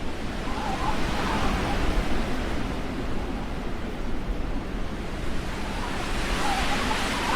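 Blizzard wind: a steady rush of wind with faint wavering whistles, about a second in and again near the end.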